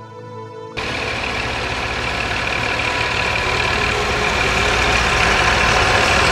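Snow-clearing tractors running, one with a plough blade, a loud steady engine noise that grows gradually louder as they come closer. It starts abruptly just under a second in, after soft music.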